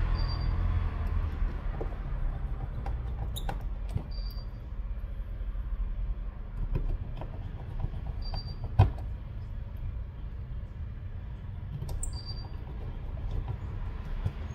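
Small clicks and taps of a precision screwdriver and fingertips working screws and parts into an opened smartphone's frame, with one sharper click about nine seconds in. Under it runs a steady low rumble, and a brief high tone recurs about every four seconds.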